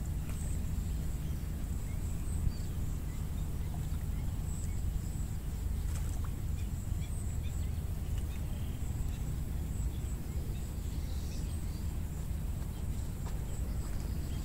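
Outdoor wind buffeting the microphone as a steady low rumble, with a thin steady high whine and a few faint chirps over it.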